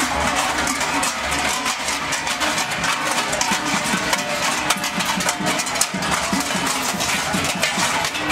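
Many large cowbells worn on Krampus costumes clanging continuously and unevenly as the figures walk in procession.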